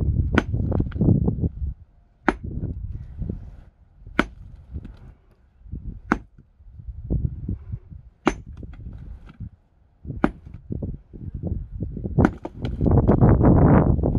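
Sledgehammer striking a large rock, six sharp cracking blows about two seconds apart. A loud low rumbling noise runs under the first second or so and returns near the end.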